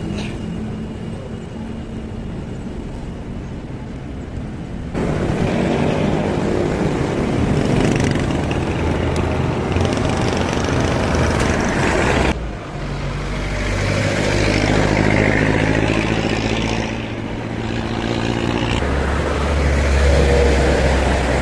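Motor vehicle engines running close by in road traffic, the sound changing abruptly about five and about twelve seconds in.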